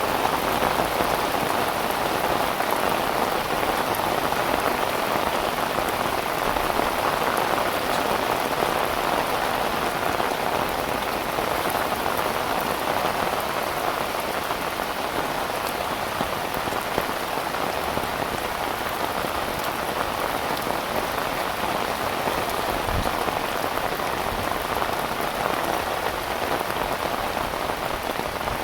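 Heavy rain falling steadily onto surfaces, a dense even hiss with scattered drop patter.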